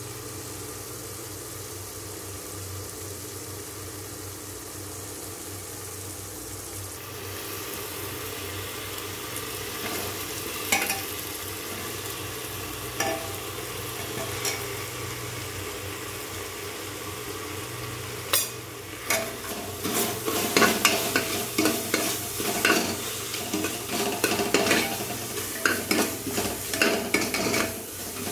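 Onion-tomato masala frying and sizzling in an aluminium pressure cooker, with a few scattered clinks of a steel ladle. About two-thirds of the way through, the ladle begins stirring steadily, scraping and clinking against the pot over and over, louder than the sizzle.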